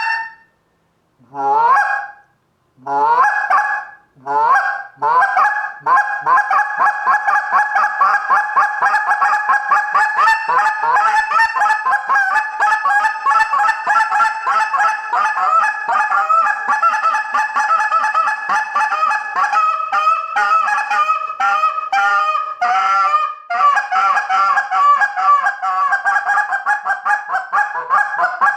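Tim Grounds G-Overhauler short-reed goose call with a shaved reed, blown by a caller. It opens with a few separate honks that rise in pitch, then runs into a long, fast string of short clucking notes, broken about two-thirds through by a few spaced notes before the fast run picks up again.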